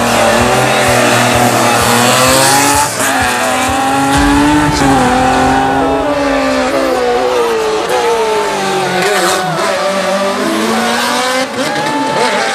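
Racing car engines, including a modified BMW 3 Series saloon, revving hard and changing up through the gears; the pitch climbs and drops repeatedly, with a brief dip at each shift.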